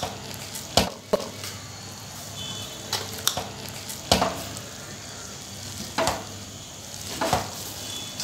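Metal ladle stirring rice in a steel cooking pot, knocking and scraping against the pot every second or two, over a steady sizzle from the pot on the heat.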